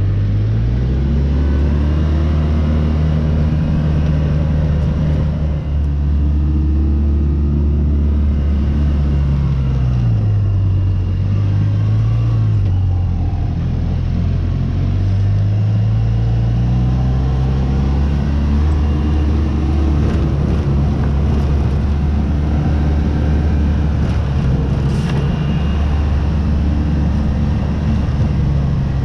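Polaris Ranger side-by-side's engine running while driving, its speed rising early, dropping about ten seconds in, and climbing again a few seconds later.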